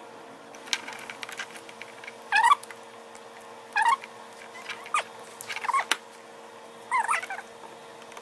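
Small clicks and rattles of hand tools working a speaker's crossover board and plastic terminal cup, broken by four short, loud chirping squeaks with a wavering pitch. A steady hum runs underneath.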